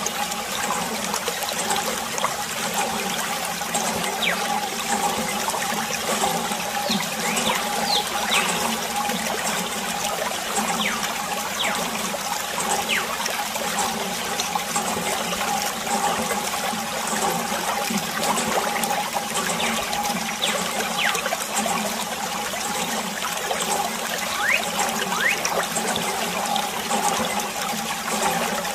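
Water running steadily from a plastic hose, trickling and splashing over toy vehicles and into shallow muddy water, with many small drips.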